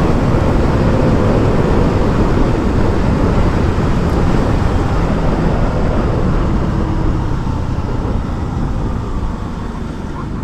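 KTM Duke 200's single-cylinder engine held at high revs in sixth gear at its top speed of about 134 km/h, up against the rev limiter, under heavy wind rush on the microphone. The sound eases a little near the end.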